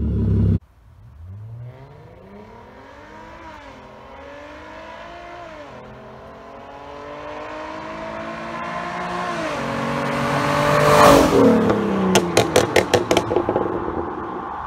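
2013 Hyundai Genesis Coupe 3.8 V6 with an aftermarket exhaust doing a drive-by. The engine note climbs through several upshifts as the car comes closer and is loudest as it passes, about eleven seconds in, and then a quick string of exhaust pops follows. It opens with the tail of a loud rev that cuts off suddenly.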